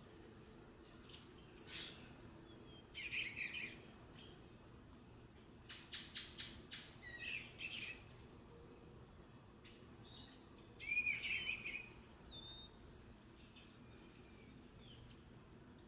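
Male eastern bluebird singing three short, soft warbled phrases a few seconds apart. A quick high call comes near the start, and a short run of sharp clicks about six seconds in, over a faint steady high whine.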